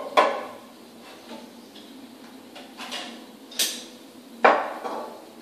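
Clear juicer jugs set down on a hard countertop with a sharp clack, followed by several more knocks and clatters as juicer parts are handled, one of the loudest near the end.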